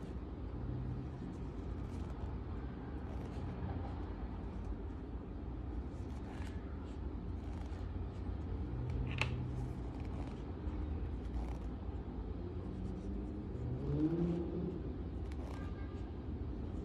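Steady low background rumble, with faint scattered ticks and a brief rising tone about fourteen seconds in.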